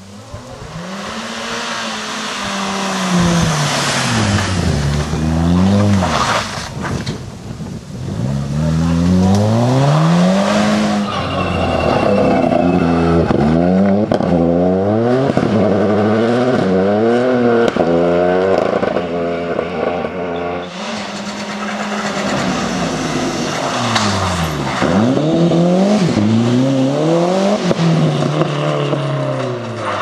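Several rally cars in turn, among them a VW Golf, a Ford Fiesta and a Mitsubishi Lancer, driven flat out past on a tarmac stage. Each engine's pitch climbs hard and drops repeatedly through gear changes and lifts, loud throughout.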